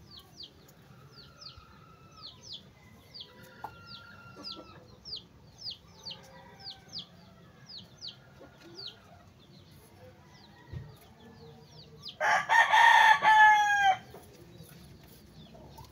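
A rooster crows loudly once, about twelve seconds in, one long call that drops in pitch at the end. Before that, a small bird chirps over and over in short, high, falling chirps, about two a second.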